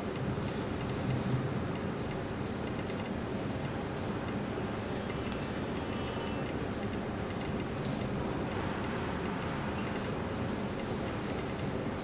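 Light, irregular ticking clicks of a smartphone keypad as a phone number is typed in, over a steady background hiss.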